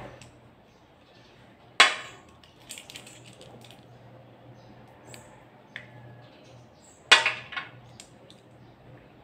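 Two sharp clacks about five seconds apart as loaded airsoft revolver shells are set down upright on a tabletop, with faint small clicks in between as BBs are pushed into the shells.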